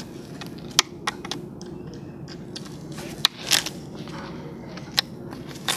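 Staple puller prying staples out of a furniture dust cover and upholstery fabric: a series of sharp clicks and snaps spread through, with a brief scrape a little past the middle.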